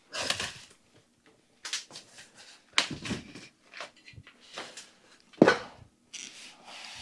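Cardboard packaging scraping and rustling with scattered knocks as a heavy 284-pound steel-cased battery cabinet is shifted and stood up in its box; the loudest knock comes about five and a half seconds in.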